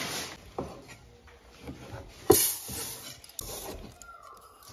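Chinese cleaver cutting meat on a wooden cutting board: a few irregular knocks of the blade on the board, one about halfway through much louder than the rest.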